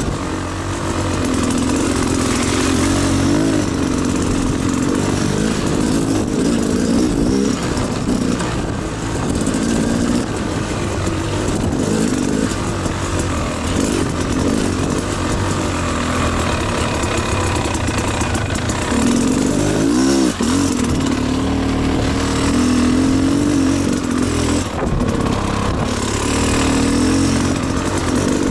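Beta Xtrainer two-stroke dirt bike engine running as the bike is ridden, its revs rising and falling with the throttle, with one quick swoop in pitch about two-thirds of the way through.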